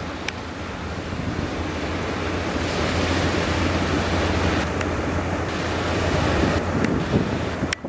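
Surf breaking at a river mouth with strong wind buffeting the microphone: a dense, steady rush that swells towards the middle, with a low rumble underneath and a few sharp clicks near the start and end.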